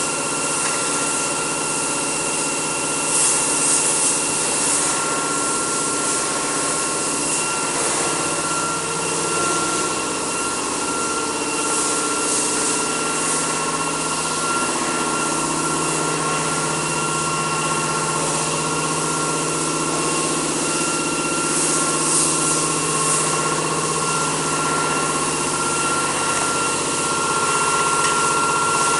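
Automatic rotary aerosol can filling machine and its conveyor running: a steady mechanical hum with a constant high whine, and short louder hisses a few times.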